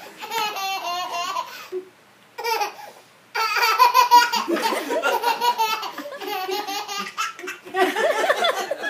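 A toddler laughing hard and high-pitched in several bouts with short pauses between them. The longest bout runs through the middle.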